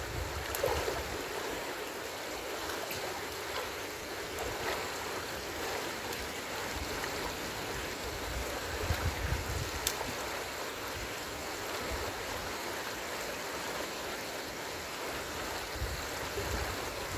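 Rain-swollen stream water rushing steadily, with a short low rumble on the microphone about nine seconds in and a couple of faint clicks.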